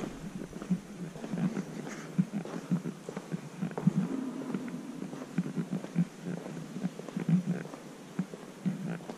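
Low, muffled thuds of walking footsteps, about two a second.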